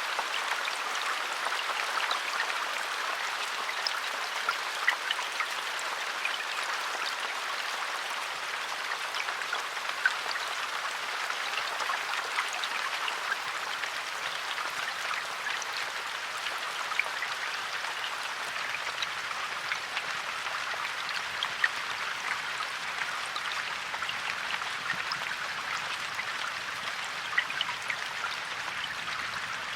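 Steady rain falling in a forest: an even hiss of rainfall with scattered individual drops ticking on leaves and surfaces.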